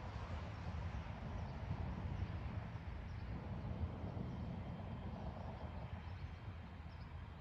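Outdoor background noise: a low, uneven rumble with a faint hiss, and no distinct events.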